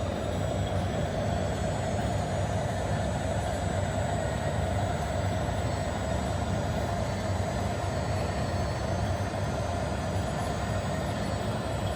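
Steady whirring of radio-controlled model trucks' small electric motors and gearboxes running, at an even level throughout.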